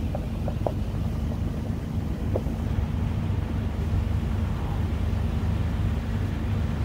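Vehicle engine idling, a steady low rumble with a constant hum. A few faint short chirps sound over it in the first couple of seconds.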